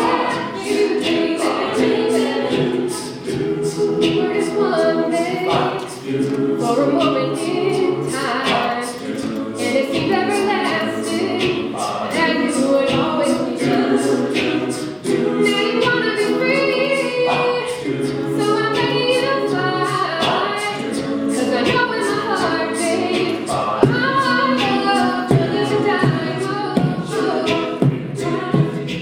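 A cappella group singing in harmony: voices hold chords underneath while a melody moves above them.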